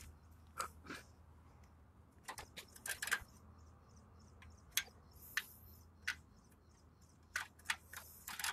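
Scattered light clicks and taps, about a dozen at uneven intervals, from handling around an old diesel engine's bay that is not running. A faint steady low hum lies underneath.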